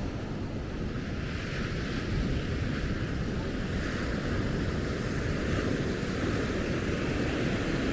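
Ocean surf washing on a beach, with wind rumbling on the microphone. The surf grows a little louder about two seconds in.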